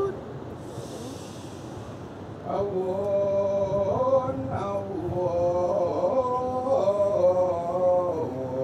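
Male voices of a Kecak chorus chanting a slow melody in long held notes that step up and down in pitch. The chant starts about two and a half seconds in.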